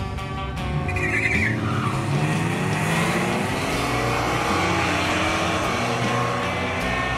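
Ford Mustang launching down a drag strip, its engine revving up and pulling away as it accelerates down the track, with a short tyre squeal about a second in. Background music plays alongside.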